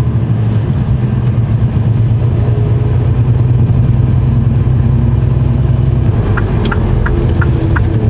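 Mercedes Actros truck's diesel engine running at low speed, a steady low drone heard from inside the cab. Near the end a quick, regular ticking starts, about three ticks a second.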